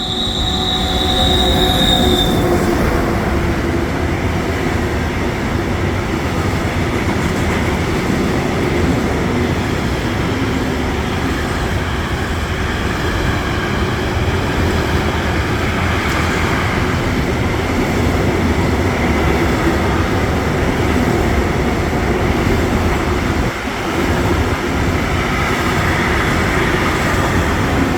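ÖBB class 1016 Taurus electric locomotive and its combined-transport freight wagons passing close by, with steady loud wheel and rail noise. A high squeal from the wheels rings in the first couple of seconds, and fainter squeals come and go later.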